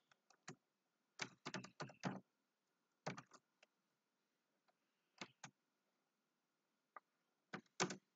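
Computer keyboard keys clicking in short bursts of typing: a quick run of about six keystrokes a little after the start, then small groups of two or three, with near silence between.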